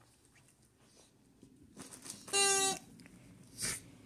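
Squeaker in a plush dog toy giving one short, steady-pitched squeak about halfway through. Soft scuffling comes before it, and there is a short breathy puff near the end.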